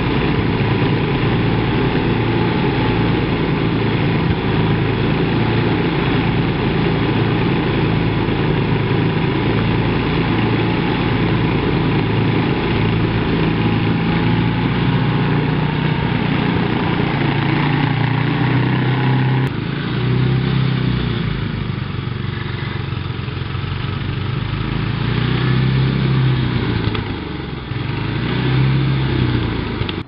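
Old small gas engine of a homemade remote-control tracked snowblower running steadily. In the second half its speed dips and rises several times.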